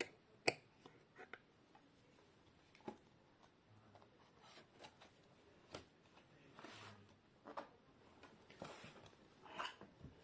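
Scattered faint clicks, taps and short scrapes of small screws, a screwdriver and plastic laptop parts being handled during disassembly, with the sharpest click about half a second in.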